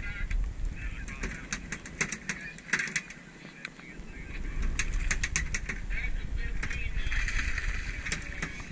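Hooked albacore tuna splashing at the surface beside the boat, growing louder in the second half, with many sharp clicks throughout.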